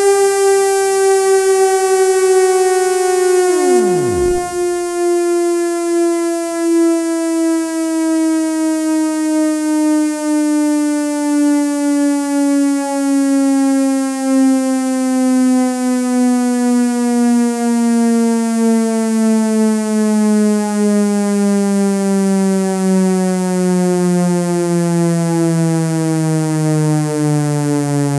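Synthesized ACA Hurricane siren, the 8-port version with an echo effect, winding down: one pitched tone with many overtones, falling slowly and steadily in pitch. About four seconds in, a quick steep downward sweep drops low and is gone.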